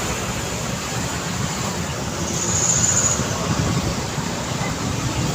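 Steady urban road traffic: engines and tyres of passing vehicles, with a brief high hiss about two and a half seconds in.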